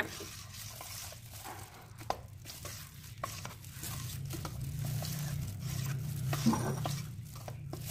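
Utensil stirring a thin flour-and-coconut-milk batter in a bowl, with irregular light clicks and scrapes against the bowl as the seasoning and pepper are mixed in.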